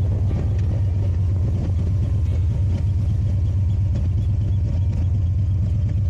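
2007 Harley-Davidson FXDC's V-twin engine running at a steady cruise while riding, a constant low rumble.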